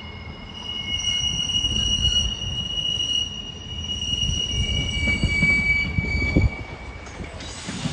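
Passenger multiple-unit train's wheels squealing in several steady high tones as it comes round curved track, over the low rumble of the train; the squeal shifts to a different pitch about halfway through and fades before the end.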